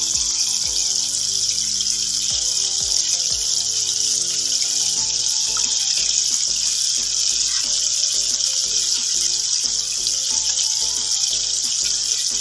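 Flour-coated chicken pieces deep-frying in a pan of hot oil: a steady, even sizzle of bubbling oil. Faint background music plays underneath.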